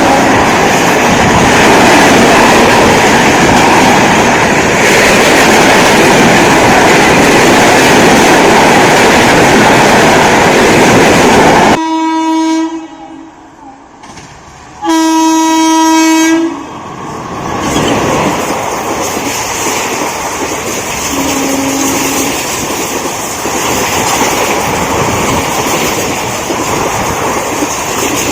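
Indian Railways express train passing at full speed, its coaches rushing by loudly for about twelve seconds before the sound drops off abruptly. Then a locomotive horn sounds, first briefly and then in a longer steady blast, followed by the quieter rolling of a train and a short horn toot late on.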